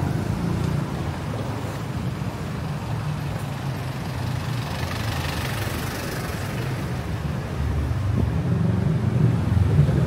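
Street traffic running past: a steady low engine rumble, with a rushing noise that swells and fades about halfway through as a vehicle goes by, and a louder engine near the end.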